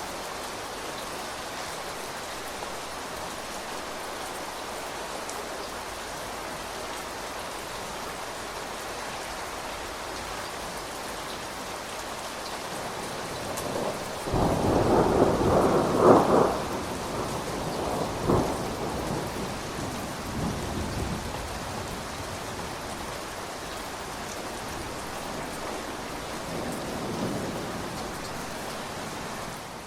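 Steady rain falling, with a clap of thunder about 14 seconds in. It is loudest for about three seconds, with a few cracks, then rumbles away over several seconds. A fainter rumble comes near the end.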